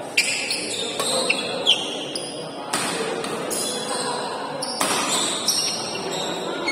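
Badminton rally: rackets strike the shuttlecock with sharp cracks about once a second, and court shoes squeak on the floor, over steady crowd noise.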